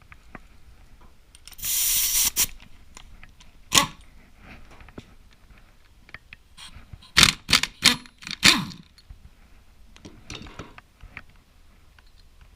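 Hand tools and metal engine parts clinking and knocking during a motorcycle engine teardown. There is a short hiss about two seconds in, a single sharp knock a little later, and then a quick run of four sharp knocks around seven to eight and a half seconds in.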